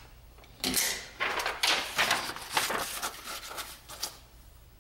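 A sheet of paper rustling and crinkling as hands lay it over a metal shaft end and press it flat, in irregular scuffs starting just under a second in and stopping a little after four seconds.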